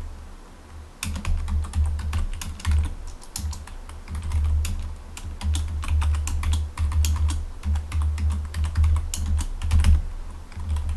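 Typing on a computer keyboard: a fast, uneven run of key clicks with a short pause about a second in.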